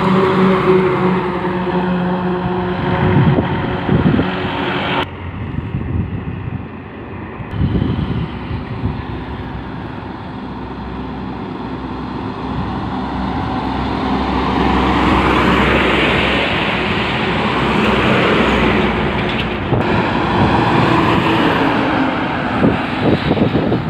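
Heavy diesel goods trucks passing close on a highway. The engine drone and tyre noise swell as each truck approaches and fade as it goes by, over several passes with abrupt cuts between them.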